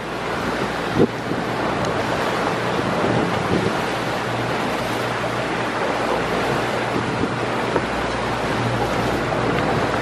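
Wind buffeting the microphone over the rush of water from a motorboat running across ocean chop, with a steady low engine hum underneath. A single thump about a second in.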